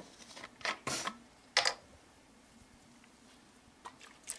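A plastic bottle being handled and opened: a few short crackles and clicks of the plastic bottle and its screw cap about a second in, with fainter handling clicks near the end as the bottle is tipped against a cloth.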